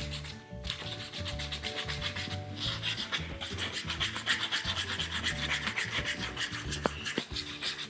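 A small plastic spoon stirring and scraping cake batter in a plastic mixing tray: a quick, continuous run of rubbing strokes.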